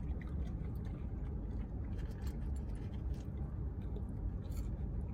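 Steady low rumble of a car idling, heard from inside the cabin, with faint scattered clicks and rustles of eating.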